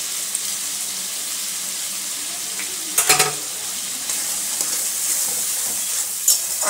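Onion-garlic and spice masala sizzling steadily in oil in a wide metal kadai as it is fried down, with a dollop of fresh cream just added. A few sharp clicks come about three seconds in, and a spatula then scrapes and stirs through the masala toward the end.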